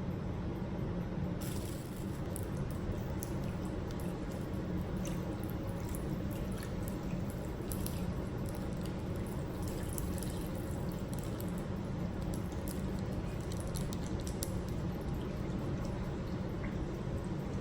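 Small wet clicks and drips as raw fish is handled and cleaned by hand, over a steady low background hum.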